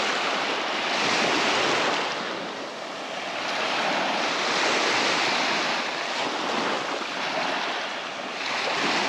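Baltic Sea surf washing onto the beach, the rush of the waves swelling and easing about every three to four seconds, with some wind on the microphone.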